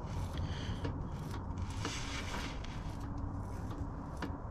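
Faint clicks and scrapes of hand work on engine parts, over a low steady rumble.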